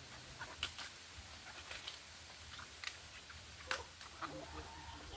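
Crisp snaps and crunches of leaves being torn off a head of cabbage, about half a dozen sharp cracks spaced unevenly.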